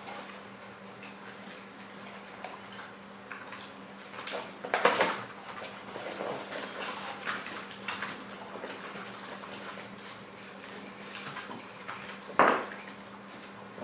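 Whippet puppies at play: scattered clicks, knocks and clatter, with two louder sudden bursts about five seconds in and near the end, over a faint steady hum.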